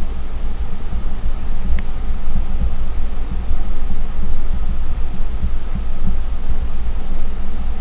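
Loud, irregular low rumbling and buffeting on the microphone, with a faint tick about two seconds in.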